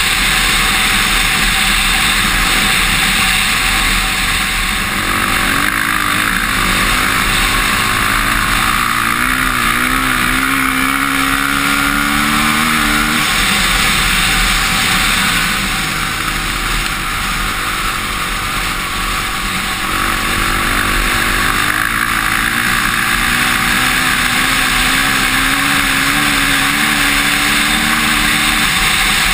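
Honda CRF450R single-cylinder four-stroke dirt bike engine under load on a flat track, its note climbing through the gears twice and dropping sharply between the climbs as the throttle is rolled off. Heavy wind rush on the helmet-mounted microphone runs underneath.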